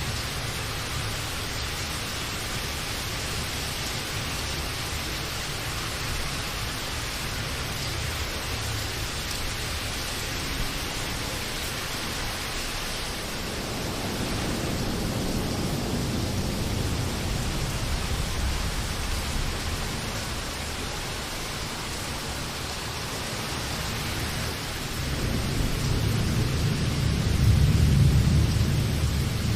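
Steady rain hissing, with thunder rolling in twice as low rumbles, once in the middle and again, louder, near the end.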